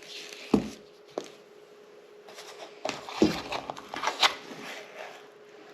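Small knocks and taps of kitchen containers and a measuring spoon being handled while dry ingredients are measured out, a few single knocks at first and a cluster of taps in the middle. A faint steady hum runs underneath.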